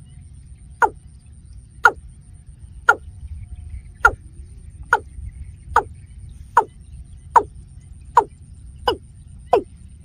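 A bird's short, sharp call, each note sweeping quickly down in pitch, repeated about once a second and coming a little faster toward the end.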